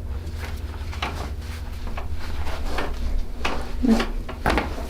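Chiropractic adjustment: a handful of short, crunchy cracks and pops from the spinal joints, the loudest about four seconds in.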